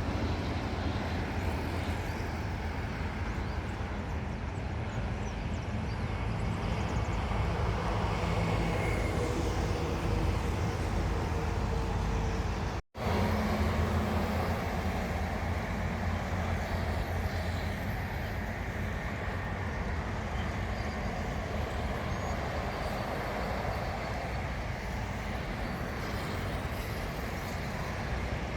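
Steady outdoor rumble of distant aircraft and road traffic, with no single event standing out. The sound cuts out completely for a split second a little before the middle.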